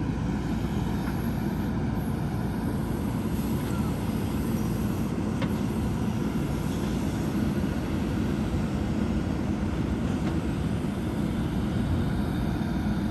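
JCB 3DX backhoe loader's diesel engine running steadily under way, with a constant low drone.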